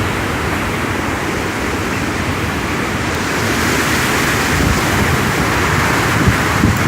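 Hurricane-force wind rushing steadily, with heavy wind buffeting on the microphone; the rush swells slightly over the last few seconds.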